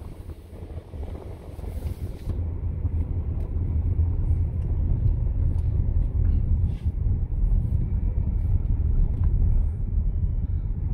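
Cabin noise of a Mercedes ML63 AMG on the move: a low engine and road rumble that swells about two seconds in as the SUV picks up speed, then holds steady.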